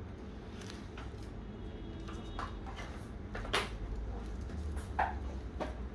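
Scattered light clicks and knocks of dental instruments being handled, the loudest about three and a half and five seconds in, over a steady low hum.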